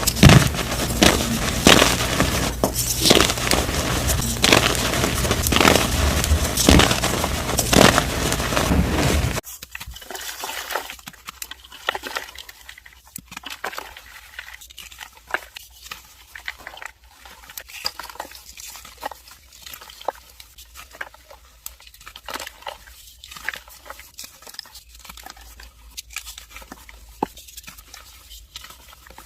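Dyed gym chalk being crushed and crumbled: dense, loud crunching for about the first nine seconds, then, after an abrupt cut, a much quieter run of scattered crackles and soft crumbling.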